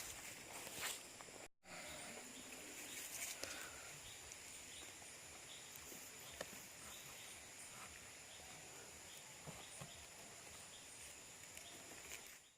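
Faint night ambience of a steady insect chorus: high continuous trilling with a soft chirp repeating at an even pace, and a few small clicks and rustles. The sound drops out briefly about one and a half seconds in.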